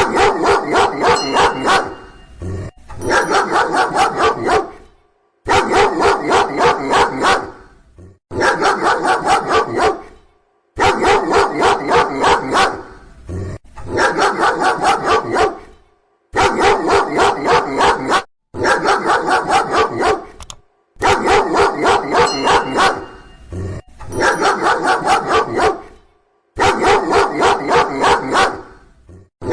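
A dog barking loudly in quick volleys of several barks, about three or four a second. Each volley lasts two seconds or so and is followed by a brief pause, over and over.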